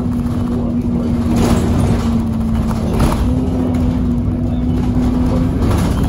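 City bus diesel engine pulling away under way, heard from inside the saloon: a low rumble with a steady whine that steps slightly higher about three seconds in, taken for the bus's turbo whine. A few brief rattles come through as well.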